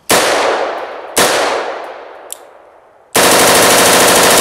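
M16-pattern rifle firing on full automatic: two short bursts about a second apart, each ringing off through the trees, then a long continuous burst starting about three seconds in and still going at the end.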